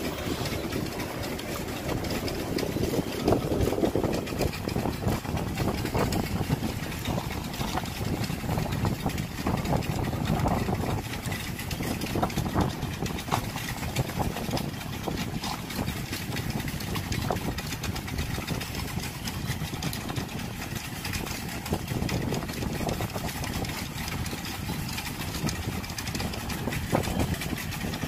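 Continuous low rumble with scattered crackles from an erupting volcano, its ash and rock avalanche pouring down the slope.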